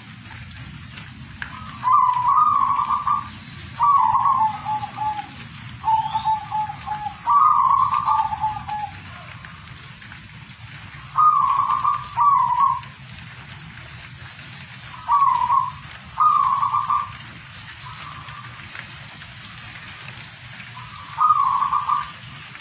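Caged zebra dove (perkutut) cooing: short repeated phrases a second or so long, about eight of them with pauses of one to four seconds between, over a steady background hiss.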